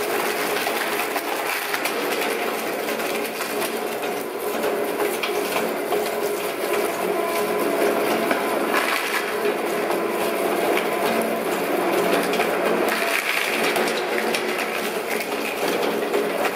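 Small electric plastic shredder running: a steady motor hum under continuous irregular crunching and cracking as its blades chew up pieces of plastic.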